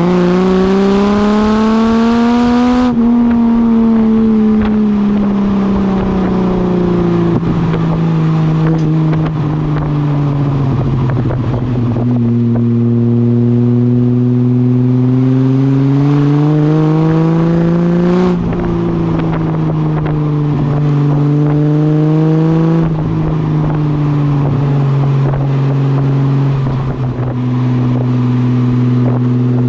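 Ford AU Falcon's inline-six engine note through extractors, a high-flow cat and a 2.5-inch catback exhaust with a centre muffler. It climbs in pitch under acceleration, falls away slowly as the car slows, climbs again and falls again, then settles to a steady note near the end.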